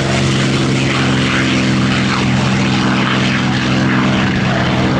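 North American P-51 Mustang's V-12 piston engine and propeller running at takeoff power, a loud, steady drone.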